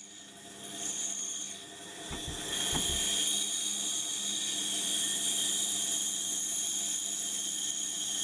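Pégas fine-cut band saw running, its blade cutting through a thick wooden block: a steady high whine and hiss that grows louder over the first three seconds or so.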